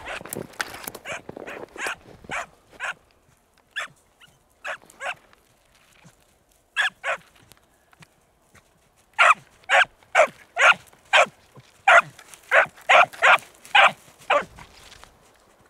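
A 22-week-old beagle hound baying while trailing a rabbit's scent track through snow. The barks come scattered at first, then in a quick run of about two a second through the second half.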